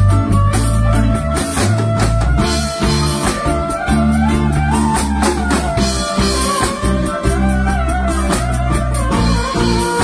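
Violin playing a melody with pitch slides over a backing track of bass and a drum beat.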